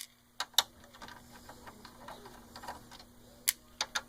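A handful of sharp, irregularly spaced clicks and taps of small screws and plastic casing parts being handled while a PS4 console is taken apart, the loudest right at the start.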